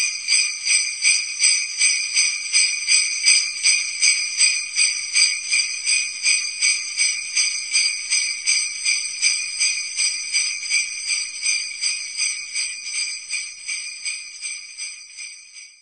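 Small bells jingling, shaken in a steady rhythm of about two and a half shakes a second. They start suddenly and fade away over the last few seconds.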